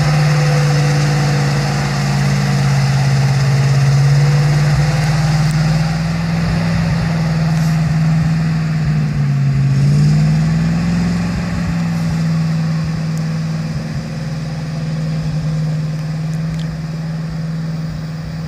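Engine of a six-wheeled Soviet army box truck running steadily as it drives slowly through mud; its pitch dips and then rises again about nine to ten seconds in.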